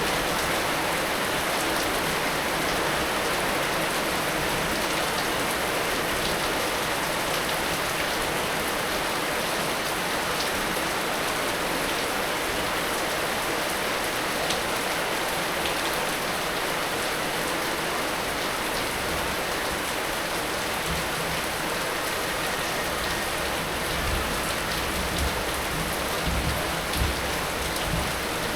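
Heavy rain falling steadily: a dense, even hiss of drops hitting surfaces, with a few single drops ticking out of it. A few low rumbles come in near the end.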